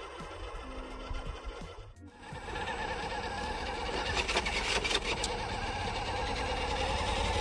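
WPL D12 RC truck driving: its small electric motor and gearbox whining steadily, with some rattling over rough ground. The sound breaks off about two seconds in and resumes louder.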